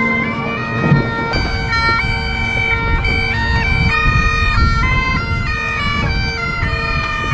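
Bagpipes playing a tune: a melody moving between held notes over the steady, unchanging drones.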